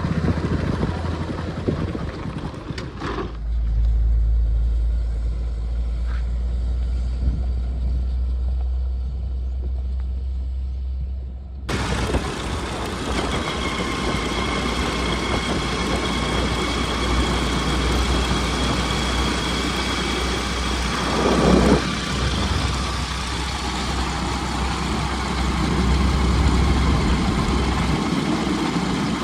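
Heavy diesel engine running with a steady low rumble. The sound changes abruptly about twelve seconds in, and a brief loud rush comes near the twenty-one second mark.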